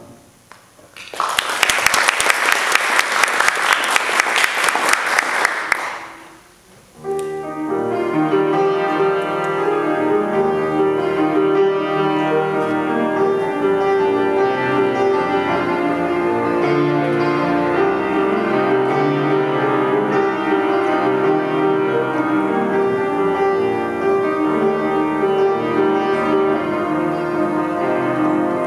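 Audience applause, a dense patter of clapping, from about a second in until about six seconds in. After a short pause, a grand piano starts playing and goes on steadily through the rest.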